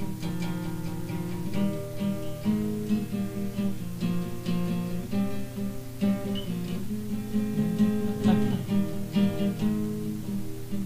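Acoustic guitar playing the instrumental intro of a song, chords ringing with a steady run of new notes.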